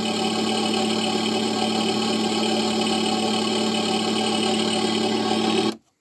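An RC model boat's sound module playing a simulated engine idle through its small onboard speaker: a steady, even hum that cuts off abruptly near the end.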